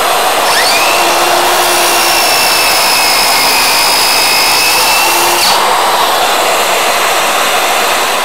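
A dust extractor runs with a steady loud hiss throughout. About half a second in, a Bosch CCS180 18V cordless circular saw spins up with a rising whine and crosscuts a board as it slides through the jig. About five and a half seconds in it is released and its whine falls away.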